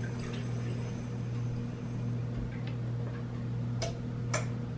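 Steady low hum with a few higher overtones, with two short, light clicks near the end.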